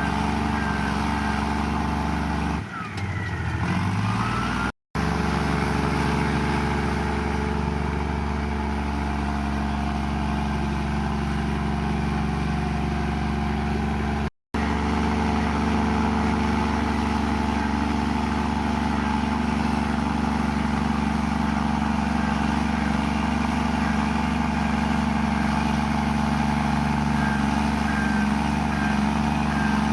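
Komatsu bulldozer's diesel engine running steadily as it works, its note dipping and then climbing again about three seconds in. The sound cuts out completely for an instant twice.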